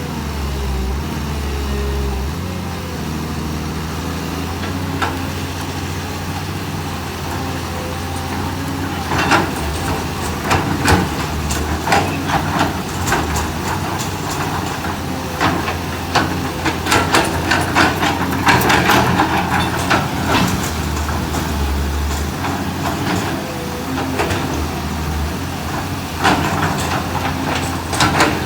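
Excavator's diesel engine running steadily under load. From about nine seconds in, frequent sharp knocks and cracks come over the engine, growing busier toward the end.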